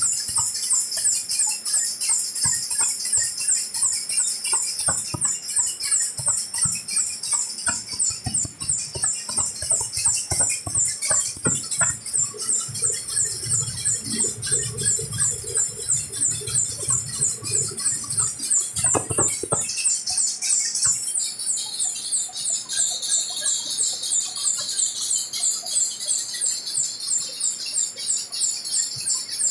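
Hemingstone flexographic printing press running, with a rapid, high-pitched rhythmic squeaking hiss that repeats several times a second. A low rumble and a few knocks come in for a few seconds midway.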